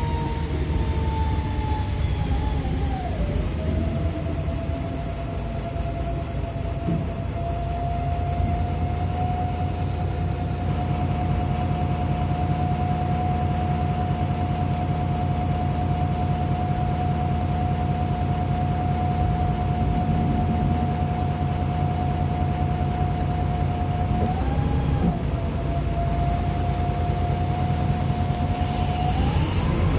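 Wright Pulsar bus on a VDL SB200 chassis with Voith gearbox, heard from inside the cabin while under way: a steady diesel engine rumble with a drivetrain whine. The whine falls in pitch over the first few seconds, holds steady for most of the time, dips briefly about 25 seconds in, and starts rising near the end.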